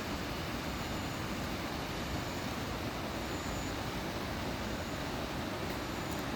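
Mountain valley stream rushing steadily, a constant full roar of water that is quite loud. Faint brief high chirps recur every second or so above it.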